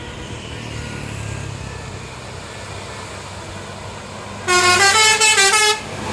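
Tour bus's telolet basuri musical horn playing a quick tune of stepping notes for just over a second, about four and a half seconds in. Before that, only the low rumble of the bus engine.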